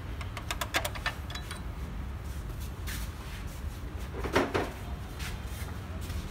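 Hand tools clicking and clanking on the exposed camshaft sprockets and timing chain of a BMW M62 V8 with the engine stopped, while the cam timing is checked. A quick run of sharp clicks comes about half a second in and one louder clank a little past four seconds, over a steady low hum.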